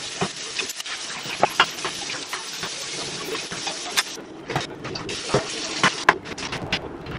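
Dishes and utensils clinking and clattering as they are rinsed and loaded into a drawer dishwasher, over steadily running tap water.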